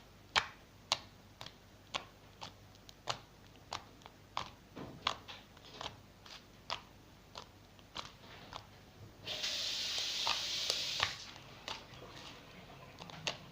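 Homemade fluffy slime worked in the hands for ASMR, giving sharp clicks and pops of trapped air bubbles, about one or two a second, with a longer hissing rush of noise about two-thirds of the way through.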